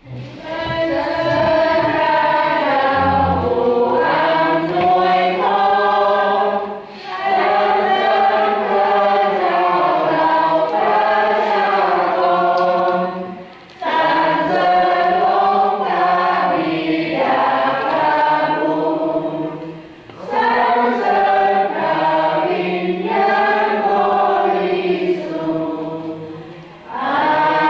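Congregation singing a hymn together in long phrases of about six or seven seconds, with a short breath between phrases.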